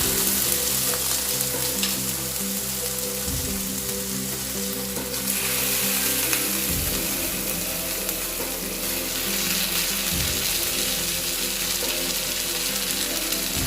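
Fried mackerel and roasted grated coconut sizzling in hot coconut oil in a pan. The sizzle starts suddenly as the fish goes in and grows stronger about five seconds in.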